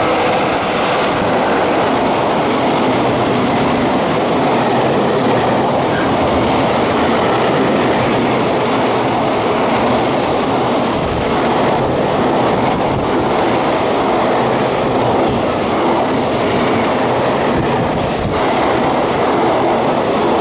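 JR Freight EF66 electric locomotive hauling a container freight train through the station without stopping: the locomotive passes in the first seconds, then a long, steady, loud rush of wheels on the rails as the container wagons run past.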